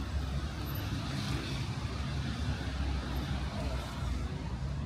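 City traffic on a rain-wet street: a steady low engine rumble under a constant hiss of wet road noise.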